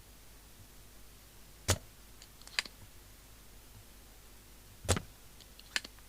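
Two sharp knocks about three seconds apart, each followed about a second later by a lighter click, as tools and parts are handled on a workbench.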